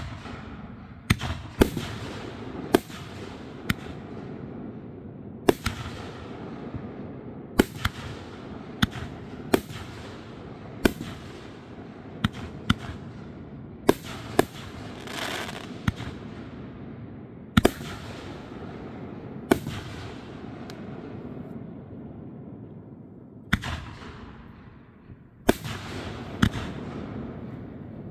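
Aerial fireworks shells bursting one after another: a string of sharp bangs at irregular spacing, sometimes two in quick succession, over a steady crackling hiss with each bang dying away. A short lull comes about three-quarters of the way through before the bangs start again.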